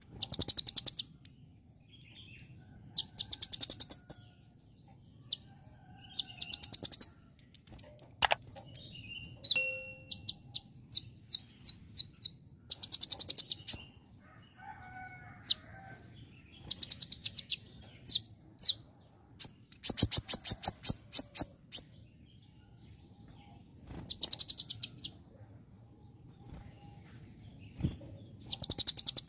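Caged sunbird (konin) singing loudly in repeated bursts of rapid, high, even chips, about ten a second and a second long, every few seconds: its mimicry of a bar-winged prinia (ciblek). Single chips and short whistled notes fall between the bursts.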